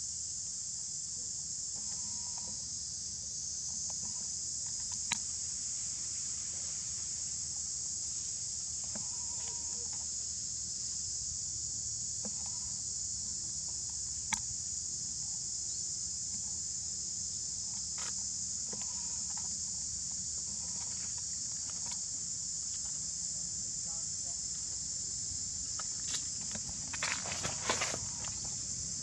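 Steady, high-pitched drone of an insect chorus. Near the end comes a short burst of scuffling noise.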